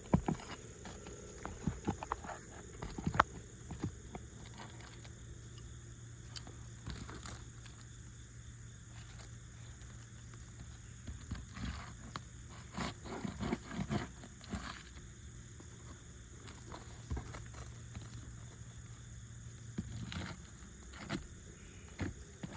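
Scattered scrapes, taps and clicks of a shingle nail-removal tool worked under asphalt roof shingles to lift them and pry out their nails, with clusters of knocks in the middle. A steady low hum sets in a few seconds in and stops near the end.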